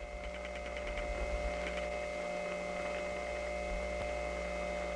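Idle telephone line noise on a trunk to a distant step-by-step central office: a steady hum and dial-tone-like tones leaking in through the waiting selector's unbalanced office power, with a few faint clicks.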